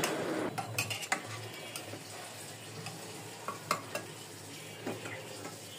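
A steel ladle stirring beef curry in a pressure cooker pot on the stove, with a soft sizzle of the cooking masala. The ladle clinks against the pot several times in the first second, then a few more times later on.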